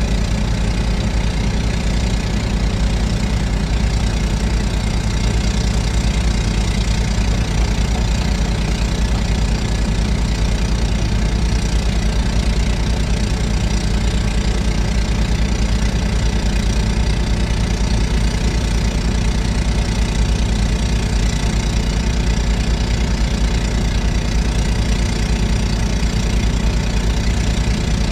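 Excavator's diesel engine running steadily at an even pitch and level.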